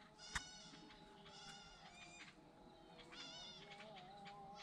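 Goats bleating faintly, three short wavering bleats, over the distant Islamic call to prayer, a long, slowly wavering chanted voice.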